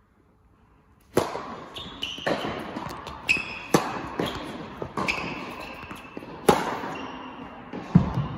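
A tennis rally on an indoor court: sharp pops of rackets striking the ball and the ball bouncing, about one a second, starting about a second in, each ringing on in the echoing hall. Near the end comes a duller, low thud.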